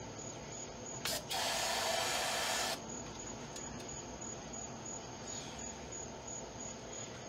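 A brief puff, then a steady hiss of pressurised spray lasting about a second and a half, which cuts off abruptly.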